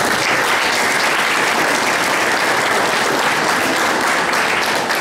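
Audience applauding, a steady crowd of many hands clapping.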